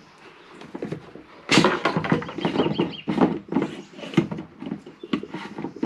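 Chickens clucking and squawking close by, quiet at first, then loud and busy from about a second and a half in.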